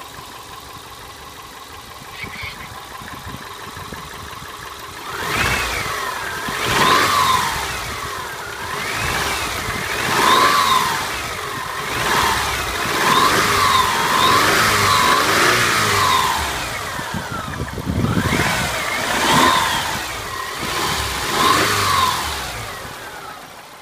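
2001 Subaru Legacy Outback's 2.5-litre flat-four boxer engine, a high-mileage unit at about 215,000 miles, running a test. It idles steadily, then from about five seconds in it is revved up and let fall back about eight times, and it settles back toward idle near the end.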